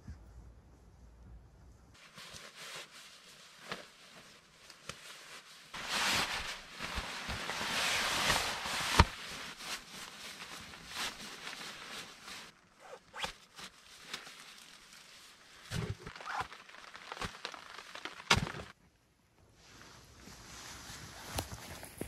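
Camping shelter fabric rustling and crumpling as it is bundled up for packing, loudest for about three seconds and ending in a sharp click, followed by scattered clicks and knocks.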